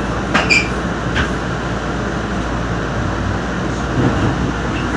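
Nippon Sharyo light rail car running along street track, a steady rumble of wheels and traction equipment heard inside the cab. Two short sharp clicks come in the first second and a bit, the first with a brief squeak.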